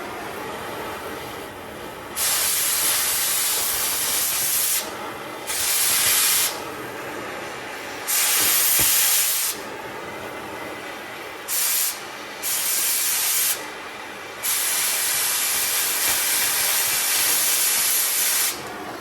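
A cutting torch on the steel truck frame hisses steadily, with six loud bursts of hiss that start and stop abruptly as the cut is blown through. One burst is brief; the last and longest runs about four seconds.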